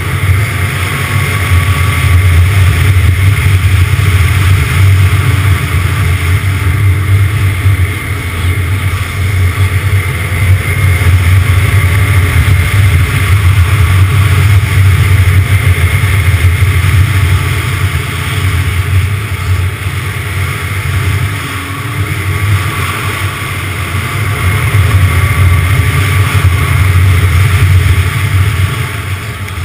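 Snowmobile engine running at speed along a trail, its pitch rising and falling with the throttle, easing off for a few seconds past the middle and again near the end.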